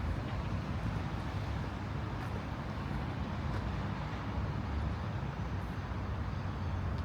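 Steady low rumble of outdoor city ambience, with road traffic in the background.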